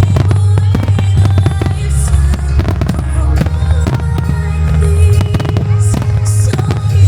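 Fireworks shells bursting in quick succession, many sharp bangs close together, over loud music with a heavy, steady bass.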